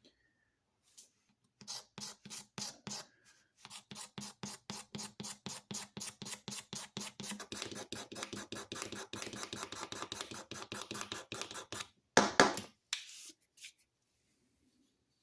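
Rapid back-and-forth hand scraping strokes on an old lathe chisel being cleaned up, about five strokes a second, ending in one louder, longer rasp.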